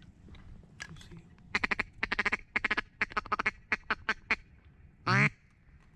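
Mallard quacking: a quick run of loud quacks that tails off over about three seconds, then one long, loud quack falling in pitch near the end.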